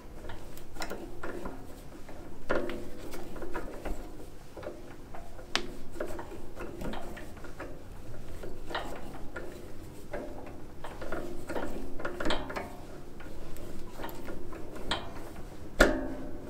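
Irregular clicks and light metallic knocks of small metal parts and hand tools being handled, with a louder knock near the end.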